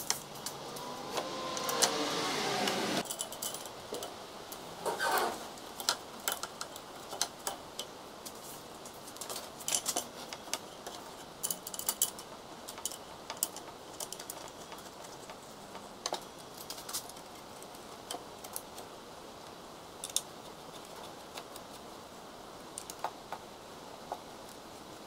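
Small metal clicks and clinks of an Allen wrench, screws and brackets being handled while the aluminium extrusion frame of a Creality CR-10S 3D printer is assembled, scattered and sparse. The first three seconds hold a louder scraping, rubbing sound.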